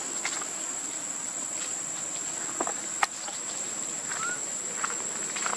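Steady high-pitched drone of insects, with light crackling of dry leaves and one sharp click about three seconds in. A brief rising chirp comes a little past four seconds.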